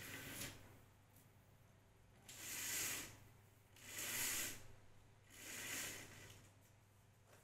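Fabric Roman blind being let down on its pull cord, in three soft hissing swells about a second and a half apart as the cord runs through the blind's rings and the fabric drops and folds.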